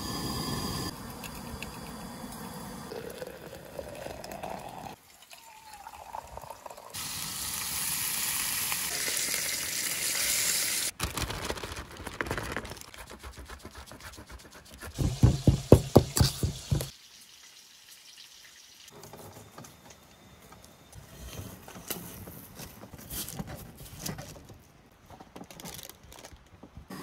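Camp breakfast cooking in short cuts: a gas camp stove burning, a few seconds of sizzling, then a quick run of rasping strokes, about six a second, as butter is grated on a box grater into flour.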